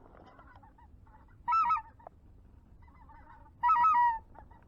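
Geese honking: two loud, close honks about a second and a half in and again near the end, each a quick run of notes, with fainter honking from other geese between them.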